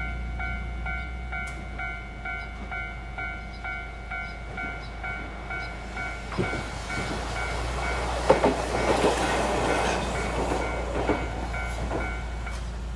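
Japanese level-crossing warning bell ringing in a steady repeated ding, joined about halfway through by a Hankai Tramway streetcar coming up and passing, its steel wheels clacking over the track with a running rumble that is loudest a little past the middle. The bell stops just before the end.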